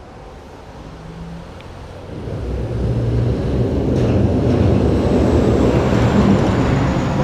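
A motor vehicle approaching close by, its engine and road noise growing louder about two seconds in and then staying loud.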